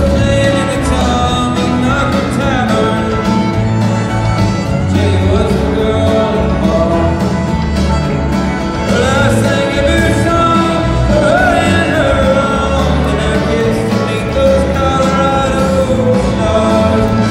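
Red dirt country band playing live, fiddle and guitars over bass and drums, recorded from the audience.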